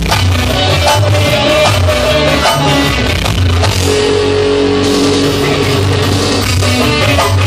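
Live band music played loud through PA speakers: electric guitar, keyboard and kendang hand drums, with a repeating beat and a note held for about a second midway.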